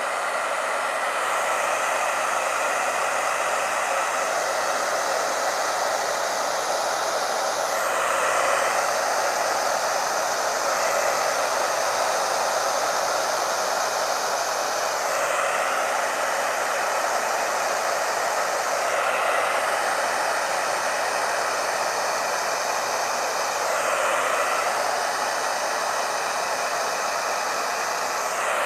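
Hair dryer running on its low, no-heat setting: a steady rushing blow of air whose tone shifts a few times as the dryer is moved.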